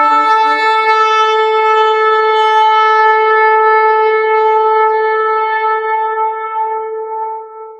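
A horn blown in one long held note, rich in overtones. It starts on a brief lower pitch that jumps up, holds steady, and fades out near the end.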